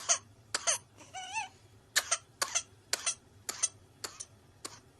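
An infant's paroxysm of short, hacking coughs, many in quick pairs, coming about every half second and growing fainter toward the end, with a brief high, wavering vocal sound about a second in. This is the paroxysmal coughing of whooping cough (pertussis).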